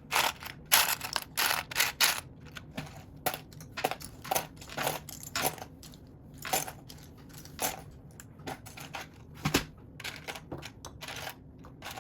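Loose plastic Lego pieces clicking and rattling against each other as a hand sifts through a pile of them. The clicks and short rustles come at an uneven pace, several a second at times.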